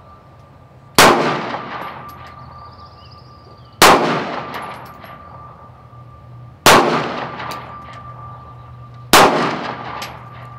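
Four single shots from a 9mm pistol, fired at an unhurried pace about two and a half to three seconds apart, each a sharp crack that rings out and fades.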